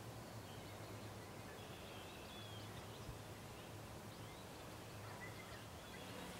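Quiet outdoor ambience: a low steady hum and faint hiss, with a few faint, short bird chirps in the middle and near the end.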